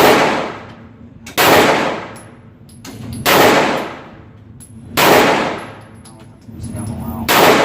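Gunshots at a shooting range: five shots, each fading out over about a second, spaced about one and a half to two seconds apart.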